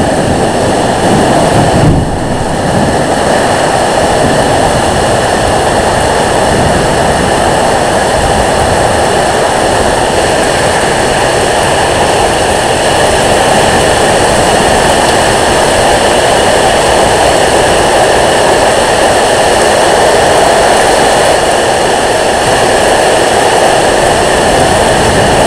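Loud, steady roar of microburst wind driving heavy rain.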